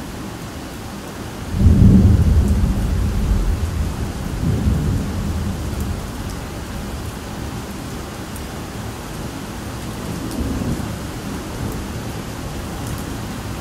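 Steady rain falling, with a sudden loud rumble of thunder about a second and a half in that rolls and fades over several seconds. A fainter roll of thunder comes later.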